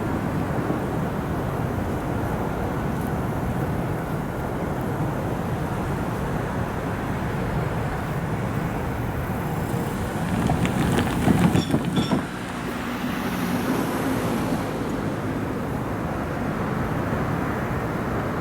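Meitetsu electric train running past with a steady rumble. About ten seconds in, a burst of wheel clatter and clicks comes as it rolls over the junction's points and rail joints.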